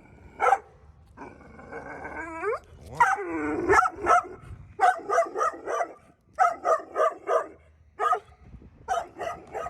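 A dog barking repeatedly, in quick runs of three to five sharp barks, with two longer drawn-out calls that glide in pitch in the first few seconds.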